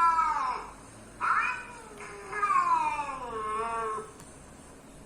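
Domestic cat meowing in drawn-out, caterwaul-like calls. A long call trails off and falls in pitch just after the start, a short call follows about a second in, and a longer call slides down in pitch until about four seconds in.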